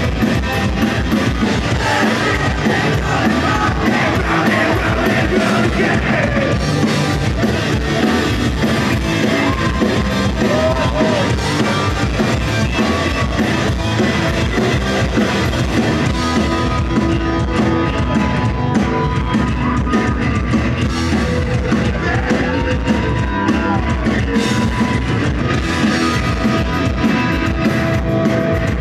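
Rock band playing live at full volume: electric guitar and drum kit, with singing.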